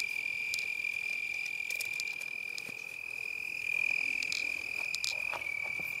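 An insect's continuous high-pitched trill, made by vibrating its raised wings, which the uploader takes for a lacewing's; it sounds like a tree frog. A few faint clicks and rustles sound over it.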